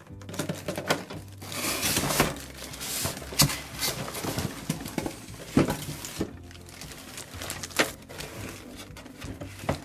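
A cardboard toy box and its plastic packaging being handled and unpacked: crinkling and rustling with scattered knocks and clicks.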